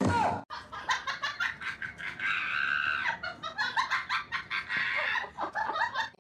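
A rapid run of short, repeated animal calls, several a second, with a longer held call about two to three seconds in.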